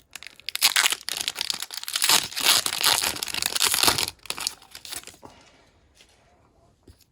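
Foil wrapper of a Pokémon booster pack crinkling loudly as it is torn open. The crinkling lasts about four seconds, then fades to a few faint rustles.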